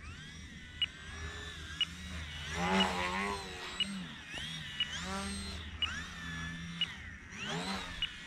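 Motor and propeller of a small RC aerobatic plane hovering nose-up, the whine rising and falling in pitch as the throttle is worked to hold the hover. A short high beep repeats about once a second.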